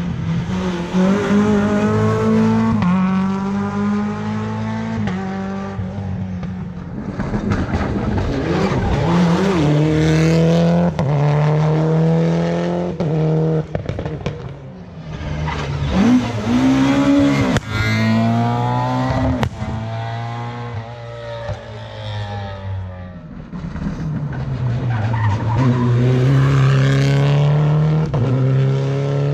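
Rally car engine driven hard on a special stage, the revs climbing and dropping again and again as it shifts gear, easing off briefly three times.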